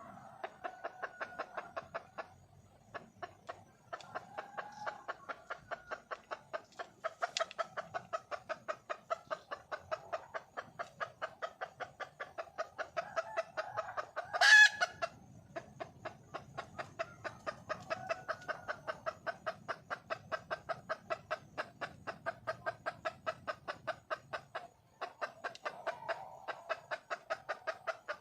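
Red junglefowl hen clucking in a rapid, even run of about three clucks a second, the calling a wild hen makes to draw a cock. One much louder, sharper call about halfway through.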